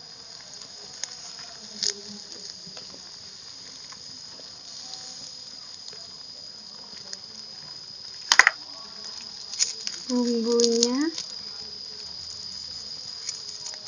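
Pan of noodles and cabbage simmering over a wood fire while a plastic spatula stirs it, with a few sharp clicks, the loudest about eight seconds in. A steady high-pitched insect drone runs underneath throughout.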